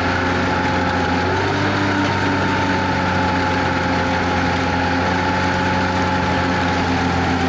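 Tractor engine running steadily under PTO load, driving a Bleinroth sugar-beet tanker harvester as its elevator unloads beet onto a heap, with a mechanical whine and the noise of beet spilling. The whine shifts slightly in pitch about a second and a half in.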